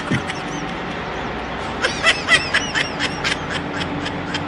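A person giggling: a run of short, high-pitched snickers about two seconds in, over a steady low background hum.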